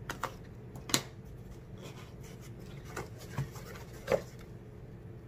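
Cardboard mailer box being handled, turned over and opened on a wooden tabletop: a few scattered taps and scrapes of cardboard, the sharpest about a second in and again a little after four seconds, over a faint steady low hum.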